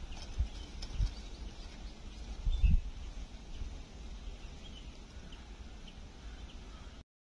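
Small birds chirping over a steady low rumble, with a few dull low thumps; the loudest comes about two and a half seconds in. The sound cuts off suddenly just before the end.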